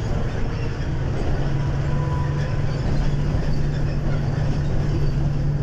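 City bus under way, heard from inside the passenger cabin: steady low engine drone mixed with road and rattle noise, the hum firming up about a second in and then holding.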